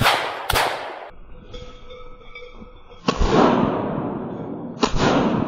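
Shotgun fire at a flushing ruffed grouse: a sharp burst of noise at the very start, then two shots about three and five seconds in, each followed by a long rolling echo. The shots miss, clipping branches instead of the bird.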